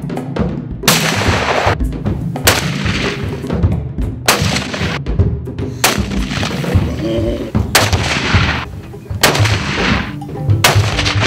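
Rifle shots from scoped hunting rifles, about six, each a sharp crack that rings out and dies away, one to two seconds apart. Background music plays underneath.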